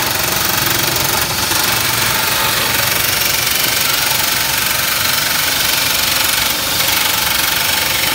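Makita 660 W electric nibbler running steadily and punching its way through sheet metal, a loud, even rapid-fire chattering of the punch.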